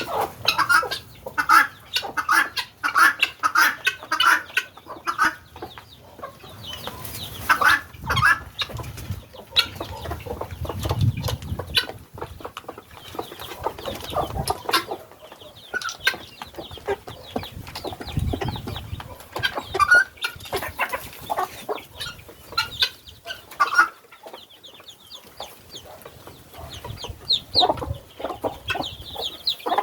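A mixed flock of helmeted guineafowl and free-range chickens calling and clucking. A quick rhythmic run of harsh repeated calls comes in the first few seconds, scattered calls follow, and thinner high-pitched chirps come near the end.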